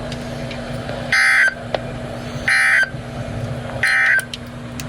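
NOAA Weather Radio's Emergency Alert System end-of-message signal: three short, harsh digital data bursts about 1.4 seconds apart, closing the weekly test. It plays from a weather radio receiver over a steady low hum.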